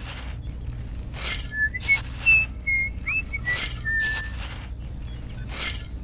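Miniature metal shovel scooping sand and cement powder from small metal buckets, a short gritty scrape roughly once a second. Brief high whistled chirps, like a bird's, sound in the background.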